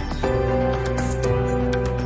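Background music: soft new-age instrumental with sustained chords and a light regular tick.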